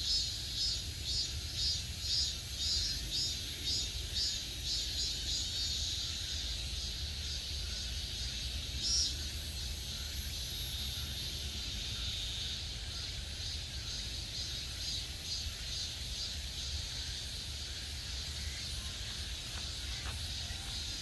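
Cicadas singing in summer woodland: a high, rhythmic pulsing song repeating a few times a second, with a second, steadier high buzz joining about nine seconds in and fading by twelve. A low rumble runs underneath.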